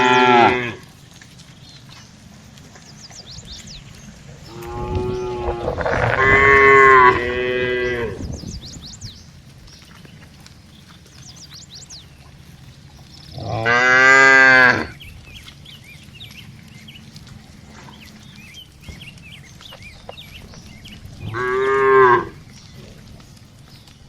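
Cattle mooing: a short moo right at the start, several overlapping moos from about five to eight seconds in, then single moos at about fourteen and twenty-two seconds in.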